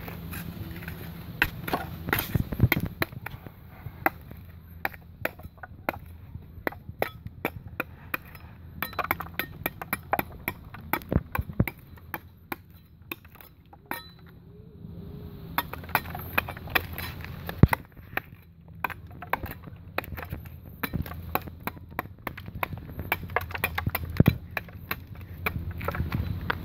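Knife blade chopping and prying into rotten tree bark: irregular sharp knocks and cracks of splintering wood, several a second, with a short lull about halfway through, over a steady low hum.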